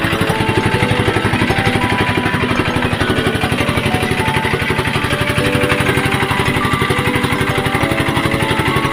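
Engine of a small wooden motorboat running steadily under way, a rapid, even pulsing with no change in speed.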